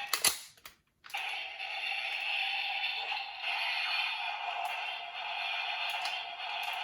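A single toy-gun gunshot sound effect at the start, then a brief silence, then a steady electronic buzz with a high hiss.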